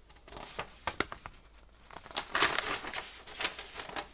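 Paper instruction sheet rustling and crinkling as it is unfolded and turned in the hands, in two bouts, the louder one about two seconds in.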